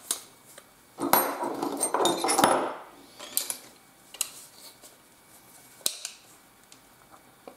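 Metal hand tools clinking and clattering: a ring spanner working a nut on a threaded steel rod and being handled on the bench. A burst of clatter with ringing metal about a second in, then a few single clicks.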